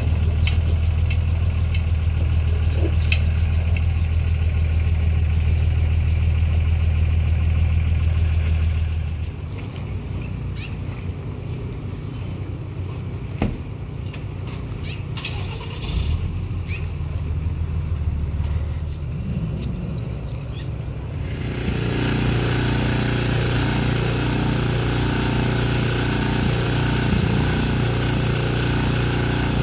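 An engine idling with a steady low hum, which drops away about nine seconds in, leaving a quieter stretch with a few clicks and knocks. About twenty-one seconds in, a boat motor runs under way, mixed with rushing water and wind.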